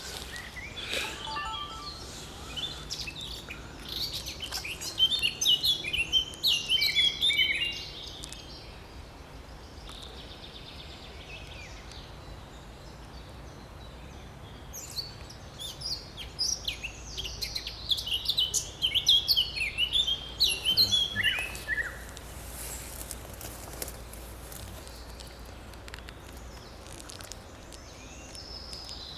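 A songbird singing two long bouts of fast, chattering high notes, the second ending in a falling run, over a steady low background rumble.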